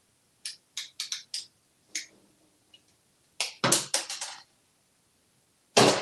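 African grey parrot's beak clicking and tugging at a plush toy chicken's pink eyes in a wooden drawer: about six sharp clicks, a burst of crackling taps about three and a half seconds in, then a louder knock near the end.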